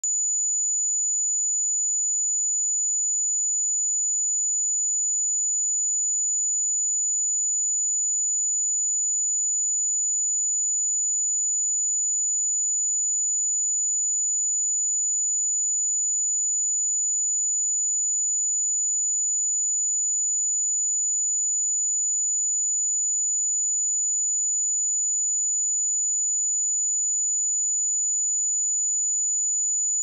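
A steady, continuous pure sine-wave test tone at 6948 Hz, a high-pitched whine held at one level with no change in pitch.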